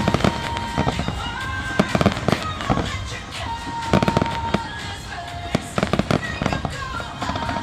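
Aerial firework shells bursting in an irregular volley, with music playing throughout.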